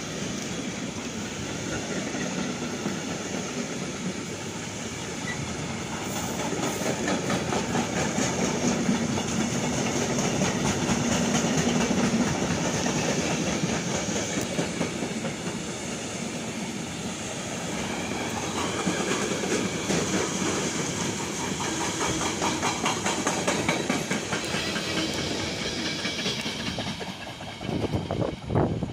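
Freight train wagons rolling past close by, a steady rumble with rapid wheel clatter over the rail joints. The last wagons go by near the end and the sound falls away.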